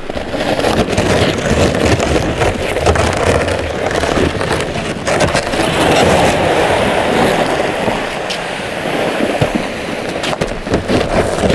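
A kayak hull scraping and grinding over frozen ground as it is dragged up the shore: a continuous rough scrape full of small clicks and crackles, dipping slightly a couple of times.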